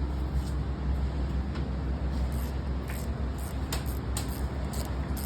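A steady low mechanical hum, with a few faint light clicks and taps scattered through the second half.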